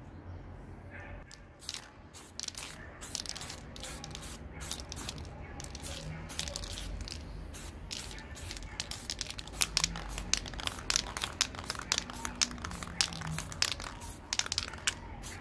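Paper being crumpled and crinkled by hand: a quick run of sharp crackles that starts about a second and a half in and grows denser and louder in the second half.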